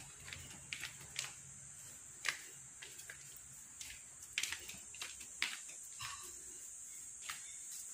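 Broom sweeping a floor: irregular short swishing strokes over a faint steady hiss.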